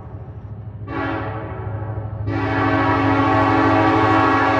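Diesel freight locomotive's air horn sounding for the grade crossing: a short blast about a second in, then a long, louder blast from just past two seconds that is still going at the end.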